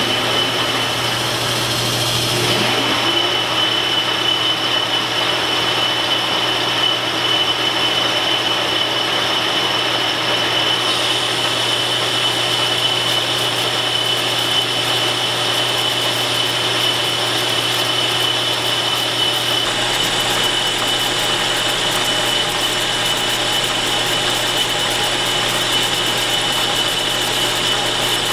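Metal lathe taking a heavy roughing cut in metal with a DNMG carbide insert, 0.1 inch deep, under flood coolant. The machine hums steadily while the cut makes a continuous steady high whine that settles in about two seconds in.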